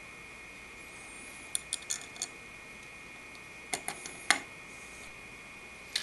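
Light clicks and taps of a CPU cooler back plate and its mounting screws being handled and pressed into place against the rear of a motherboard. There are a few quick clicks about one and a half seconds in and another few around four seconds in, the last the loudest.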